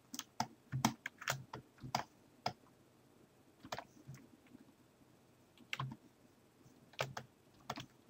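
Computer keyboard keys being pressed in short, irregular runs: a quick flurry of keystrokes over the first couple of seconds, a single one near the middle, then a few more towards the end.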